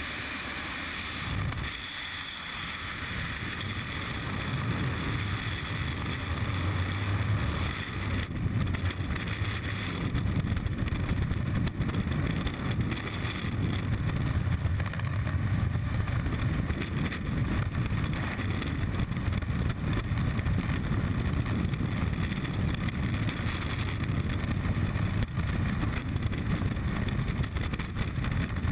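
Wind buffeting a helmet-mounted camera's microphone, a steady rushing noise. It starts at a small plane's open door during the jump exit and grows louder over the first several seconds of freefall, then holds.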